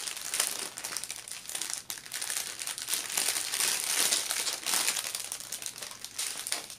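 Thin clear plastic bags crinkling as hands handle and open a bundle of small bagged diamond-painting drills: a continuous crackle of many quick crinkles that thins out near the end.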